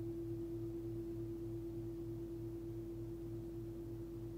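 A 24 cm Nepalese singing bowl, 111 Hz fundamental (note A), ringing on in a long sustained tone that slowly fades. A steady higher overtone sits over a low hum that wobbles about twice a second.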